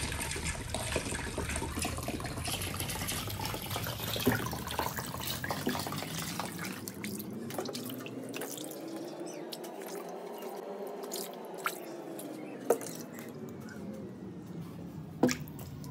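Water sloshing and dripping as raw chicken pieces are handled and lifted out of a basin of water in a stainless steel sink, with scattered sharp drips and clicks. A faint hum slowly rises and then falls in pitch in the second half.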